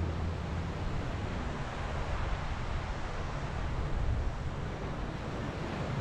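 Low surf washing onto a sandy beach, a steady hiss of water, with wind buffeting the microphone underneath.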